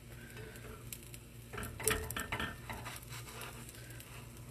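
A spatula scrapes and clinks against a stainless steel frying pan as it is worked under a cooking pancake, with a cluster of short clicks and scrapes about two seconds in.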